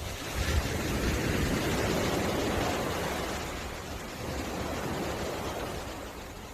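Waves washing onto a beach: a surge of surf swells about half a second in and slowly eases, then a smaller wave comes in after about four seconds and falls away near the end.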